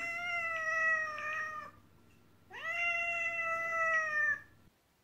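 Domestic cat meowing twice: two long, drawn-out meows with a short pause between, the second sweeping up in pitch as it starts.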